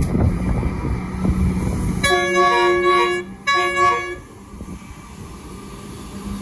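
Train horn sounding two blasts, several notes at once: a longer one about two seconds in, then a short one, over a low rumble that drops away after the second blast.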